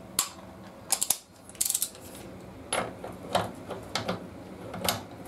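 Ratchet of a torque wrench clicking on the rear axle nut as it is tightened to 113 Nm: a handful of separate sharp ratchet clicks, with a quick run of rapid clicks a little under two seconds in.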